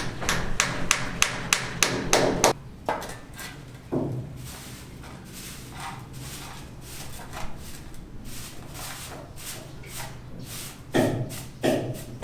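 A quick run of sharp knocks, about three a second, for the first two and a half seconds. Lighter scattered clicks follow, then a few heavier knocks near the end.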